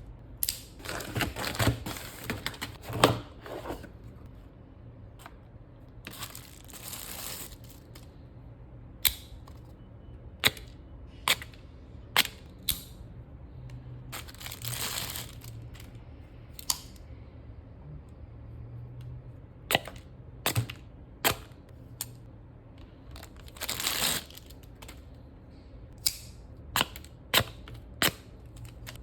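Knife packaging rustling and crinkling in several stretches, with many sharp single clicks and snaps in between as the knives are handled and opened.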